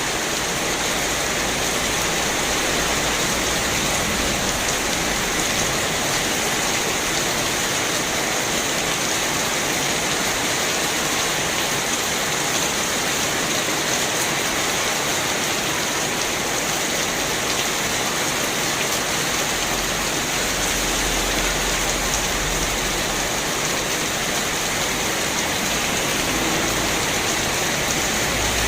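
Heavy rain falling steadily and splashing on parked motor scooters and motorcycles, with a low rumble joining in during the last several seconds.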